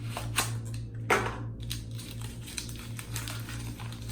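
Small cardboard soap box being opened and handled: a string of light clicks and paper rustles, with one louder scrape about a second in.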